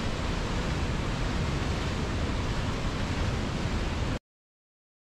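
A steady, even rushing noise with strong low rumble, cutting off abruptly into dead silence a little past four seconds in.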